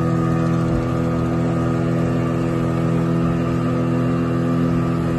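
Speedboat engine running at a steady speed under way, heard from on board, with a constant drone over the rush of wind and water.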